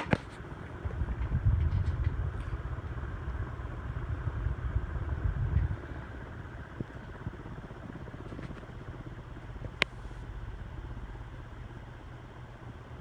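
Hunter R-36 ceiling fan with aluminum blades running on high, a steady low rumble that is strongest for the first several seconds and then eases. There is a sharp click at the start and another near ten seconds.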